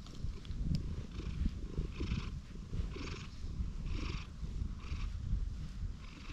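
Domestic cat purring steadily and close up, with a soft rustle about once a second as a hand strokes the fur on its head.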